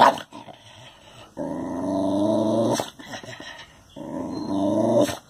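A dog growling in two long growls, each about a second and a half, with a sharp click at the start and another just before the end.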